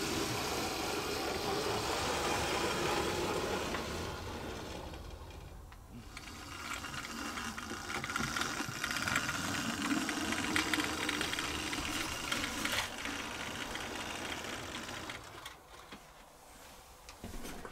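A Hornby Silver Seal model of Oliver Cromwell running along the track: a steady whir from its tender-driven motor, with the wheels rattling on the rails. The level rises and falls, dipping about five seconds in and again near the end.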